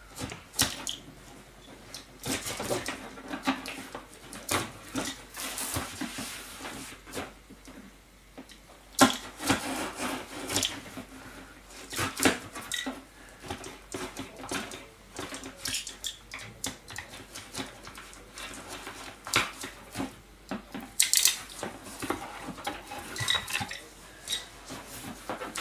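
Packing tape being slit with a utility knife and peeled off a cardboard box: irregular rips, scrapes and crinkles of tape and cardboard, with the cardboard flaps pulled open near the end.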